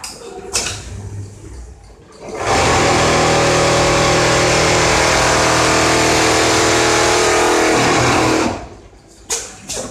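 Automatic template sewing machine starting up, running fast and steady for about six seconds, then winding down, with sharp clicks of the machine's mechanism before and after the run.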